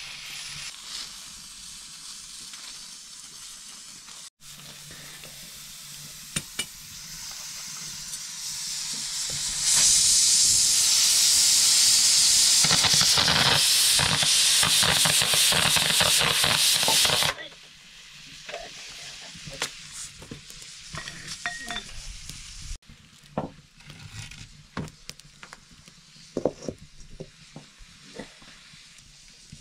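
Aluminium pressure cooker on a wood fire hissing as steam escapes from its lid and valve. About ten seconds in, the hiss turns loud and steady for about seven seconds as the cooker vents, then cuts off suddenly. After that, the wood fire crackles and pops.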